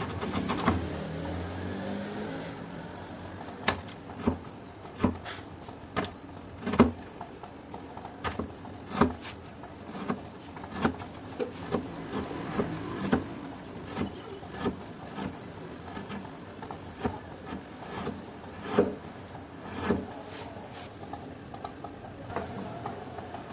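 Chisel work on wood: a string of sharp knocks and taps, irregularly spaced about one every half-second to a second, over a low steady noise.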